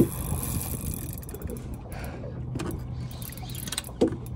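A spinning fishing reel being cranked to bring in a hooked fish, its gears clicking and whirring, with a low steady hum underneath. A sharp thump sounds right at the start, and a knock near the end.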